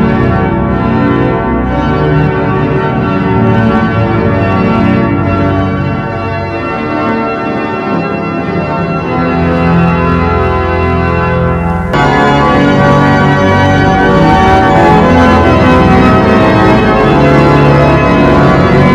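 Cathedral pipe organ playing an improvised piece in sustained, many-voiced chords. About twelve seconds in the sound suddenly grows louder and fuller.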